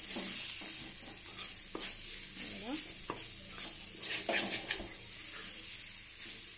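Chicken pieces in browning pepper masala sizzling in oil in a metal kadai while a metal spoon stirs and scrapes them round the pan in repeated strokes, the dry-roasting stage on a high flame.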